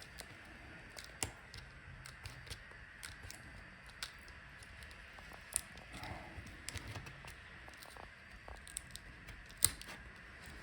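Faint, scattered small clicks, ticks and scratches of fingers and a tool working at a laptop LCD panel's video cable connector to free it, over a faint steady hiss.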